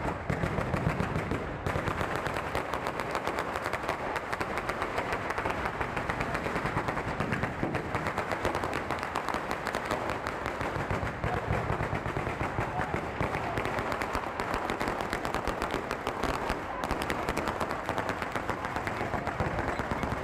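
A batteria alla bolognese: chains of firecrackers strung along the street exploding one after another in a dense, unbroken rapid crackle.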